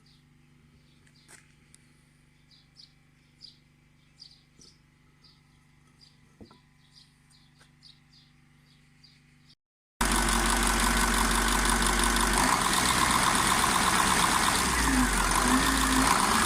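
Faint, repeated bird chirps over a low steady hum. About ten seconds in, after a short cut, a KamAZ 740.13 turbocharged V8 diesel starts running loudly and steadily: the engine has just been rebuilt with a new piston kit and is being run in.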